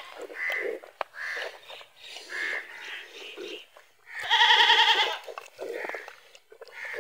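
Sick goat bleating while it is drenched with a herbal brew from a bottle held in its mouth: several short calls, then one long, loud, quavering bleat about four seconds in.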